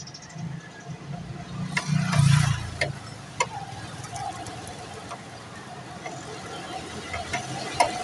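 An old car's engine cranked briefly on the starter in a trial of a newly fitted ignition coil, with one loud burst about two seconds in and a few sharp clicks after it. It does not start, the owner suspects a bad spark plug.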